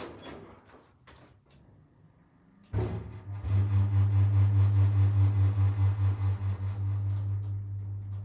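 Lift machinery starting up after a quiet spell, nearly three seconds in: a sudden, loud, steady low hum that pulses slightly.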